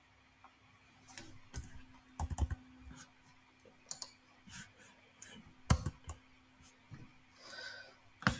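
Computer keyboard keystrokes and clicks, irregular and scattered, some sharper and louder than others, over a faint steady hum.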